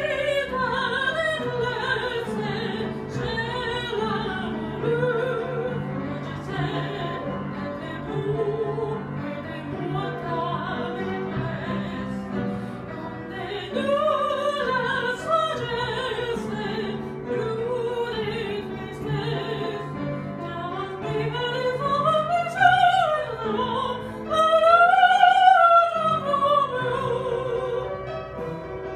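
A woman singing in a classical, operatic style with a wide vibrato, accompanying herself on an upright piano. Near the end the voice climbs to its loudest, highest held notes.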